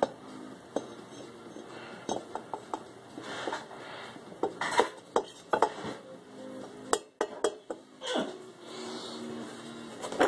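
Irregular metallic clinks and knocks as an aluminium motorcycle cylinder head is set down and shifted on a steel fixture plate on a milling machine table.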